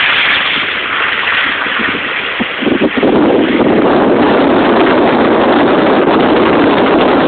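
A loud, steady rushing noise of storm wind and floodwater, growing louder and fuller about three seconds in.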